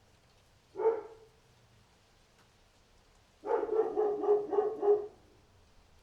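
A dog barking: one bark about a second in, then a quick run of about six barks.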